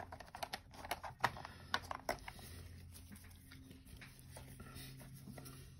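Light, irregular clicks and taps of a plastic paint dropper bottle being handled and set down on a desk for about two seconds, then only a faint low hum.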